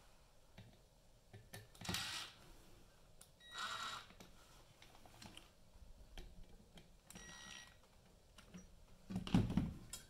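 Cordless RIDGID 18-volt impact driver spinning in three short runs with a whirring whine, backing out the mounting screws on a ceiling fan motor housing. A dull thump near the end is the loudest sound.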